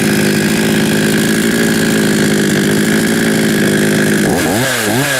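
52cc two-stroke Chinese chainsaw with a 20-inch bar running steadily at low speed. Near the end it is revved up sharply twice, the engine note rising and falling each time.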